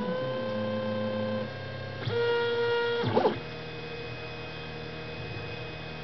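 3D printer's stepper motors whining as the head travels, a stack of steady pitches that changes with each move. The pitch rises and settles just after the start, jumps to new pitches about one and a half and two seconds in, and sweeps briefly a little after three seconds.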